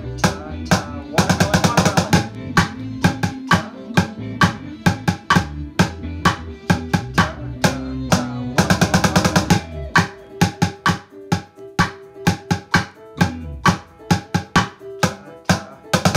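Wooden drumsticks beating a steady rhythm on a household item used as a drum, about three to four strikes a second, with quick rolls about a second in and again about halfway through. A backing track with held bass notes plays under the strikes.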